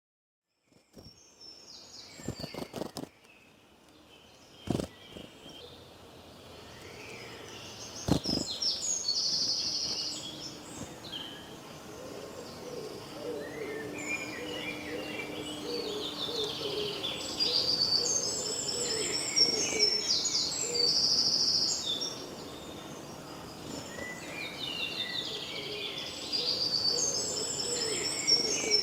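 Outdoor birdsong: several small birds chirping and trilling over a steady background, with three sharp knocks in the first eight seconds.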